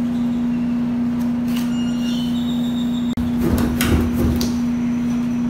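A steady low hum, like a kitchen appliance or fan running, with a few knocks and a rumbling rub about three and a half seconds in as a rolling pin is handled on a steel worktable.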